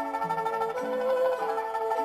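Background instrumental music: a melody of held notes that step from pitch to pitch about every half second.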